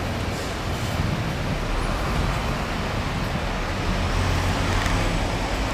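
Steady low rumble of motor traffic, with an engine note coming up and getting a little louder in the second half.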